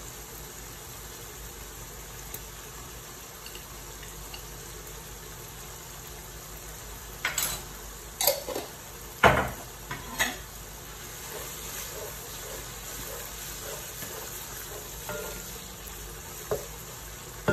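Onion-tomato masala sizzling steadily in oil in a pan. From about seven seconds in, a utensil knocks and scrapes against the pan four times in quick succession, then a wooden spatula stirs the mixture with a few lighter knocks.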